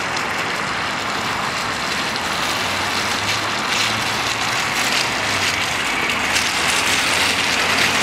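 GAZ Gazelle minibus's turbodiesel engine running as the van drives slowly by, with a steady hiss of tyres on wet mud. The low engine hum firms up a couple of seconds in and grows a little louder as the van comes close.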